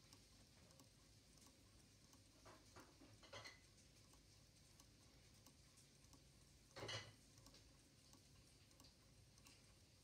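Kundo electromagnetic clock movement ticking faintly, with one brief louder noise about seven seconds in.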